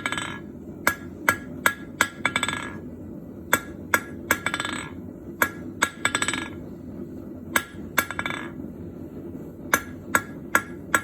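Rounding hammer striking a hot bronze rod on the anvil, drawing out a tip. The blows come in groups of three or four, each group followed by a short rattle of quick lighter taps.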